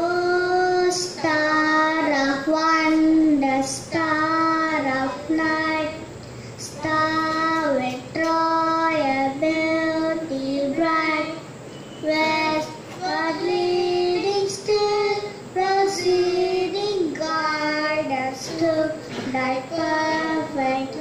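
A child singing a slow melody into a microphone, in phrases of long held notes with short breaks for breath.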